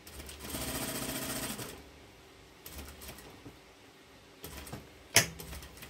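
Sewing machine stitching a zipper onto cotton lining fabric: one run of rapid stitching lasting about a second and a half, then two short bursts of stitches, and a sharp knock near the end.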